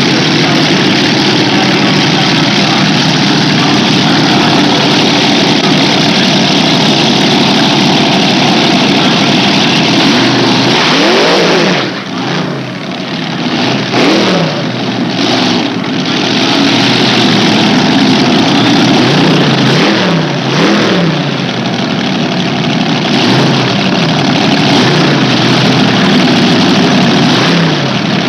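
A modified pulling tractor's engine running loud at high revs, with its pitch swinging down and back up a few times around the middle.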